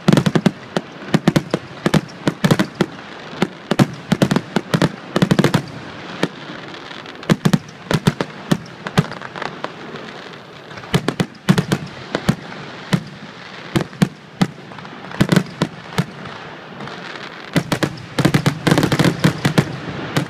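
Fireworks finale close to the launching site: aerial shells launching and bursting in a rapid, unbroken barrage of sharp bangs, several a second, heaviest near the end.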